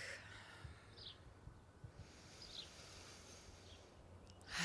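Quiet outdoor ambience with a few faint, short bird chirps, about three, spread through it.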